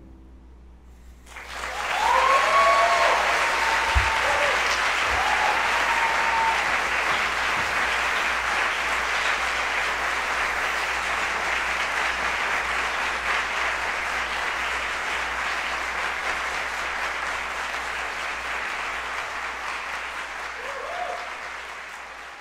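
Audience applauding with a few cheers, breaking out about a second and a half in and slowly dying away near the end.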